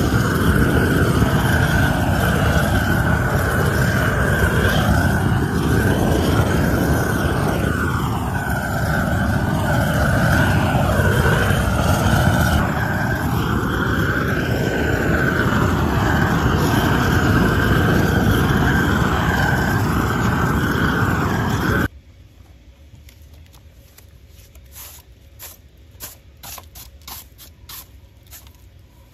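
A propane weed torch burning weeds out of the joints of interlocking pavers: a loud, steady rushing flame noise. It cuts off abruptly about three-quarters of the way through, and a broom then sweeps the bricks in short, quieter, repeated strokes.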